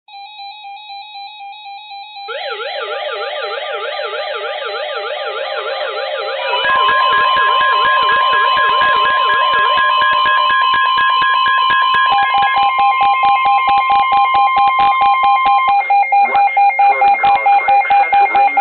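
Several weather alert radios sounding their alarms at once for an incoming Flood Warning. A two-tone warble starts first, a fast sweeping siren tone joins about two seconds in, then steady high tones and rapid pulsing beeps pile on, including the steady 1050 Hz weather-radio alert tone.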